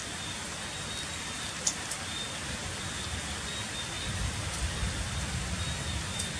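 Heavy rain falling steadily on stone paving, an even hiss, with one sharp tap about a second and a half in and a low rumbling that sets in around four seconds.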